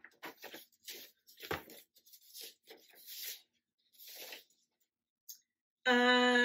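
Stiff paper rustling and crackling in short, irregular bursts as a folded paper card is handled and opened out. Near the end, a woman's voice is held on one steady note for about a second.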